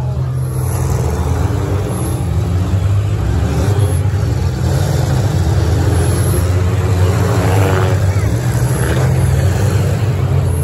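Several demolition-derby cars' engines running together in a dense low rumble, their revs rising and falling.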